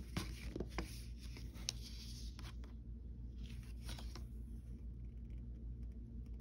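Paper rustling and crinkling as a folded instruction booklet is handled and opened: a few sharp crinkles in the first couple of seconds, then a softer rustle a little past the middle, over a steady low hum.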